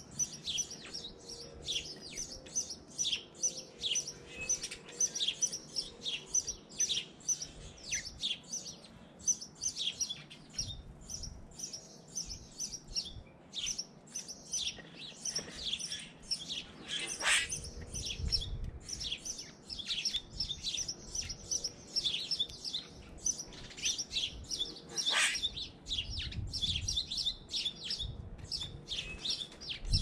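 Small feeder birds chirping rapidly and continuously, several at once. A couple of louder sharp sounds break in about halfway and again later.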